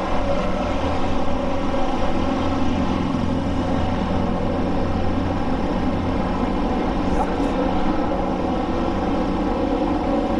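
Steady, unchanging drone of running machinery with a constant low pitch.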